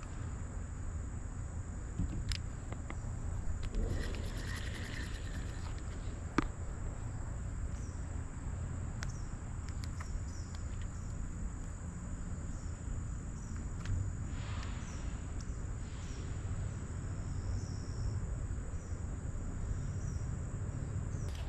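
Insects calling in one steady high-pitched drone, over a low rumble, with a few scattered clicks.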